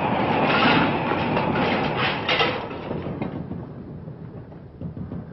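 Dense rumbling, crackling battle noise from an old newsreel soundtrack, fading away over the last couple of seconds.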